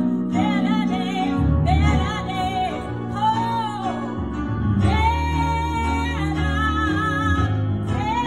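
Gospel song: a singer holding long, wavering notes in short phrases over sustained bass and accompaniment.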